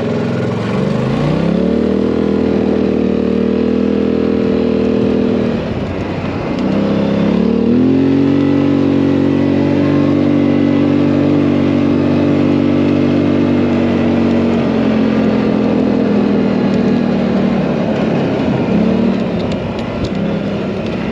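John Deere 7810 tractor's diesel engine running under load: it revs up about a second in, dips briefly around six seconds, revs up again about eight seconds in, then eases off around fifteen seconds.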